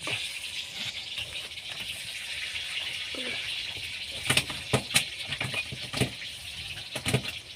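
A fishing handline being hauled in by hand on a small wooden boat: a few sharp knocks and rattles in the second half, over a steady hiss of wind and sea.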